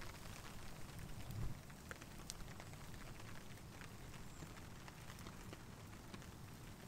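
Light rain pattering: a soft steady hiss with scattered small drip ticks.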